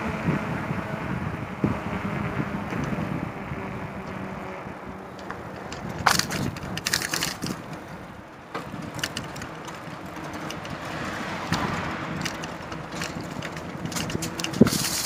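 Riding noise from a bicycle: steady rolling and rattling, with bursts of crackling clicks about six seconds in and again near the end.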